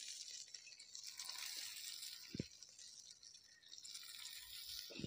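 Crumbled spiced fish mixture dropping into a hot aluminium pan of fried onions, with a faint steady sizzle and a soft knock about halfway through.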